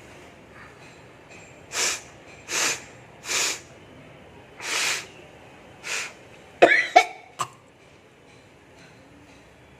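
A person blowing their nose hard in five short bursts of air, then a short, louder voiced outburst with a sharp click after it.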